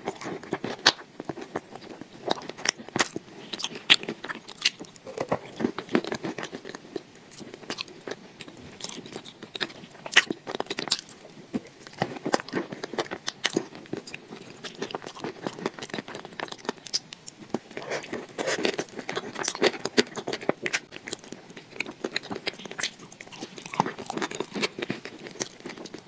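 Close-miked mouth sounds of eating a thick, creamy paste and a crumbly chunk dipped in it: wet, sticky clicks and smacks with biting and chewing, many small sharp clicks coming irregularly throughout.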